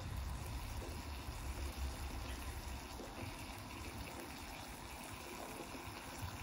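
Back bacon sizzling in a ceramic-coated Jetboil Summit Skillet over a low gas camping-stove flame, a steady frying hiss. A low rumble under it eases about halfway through.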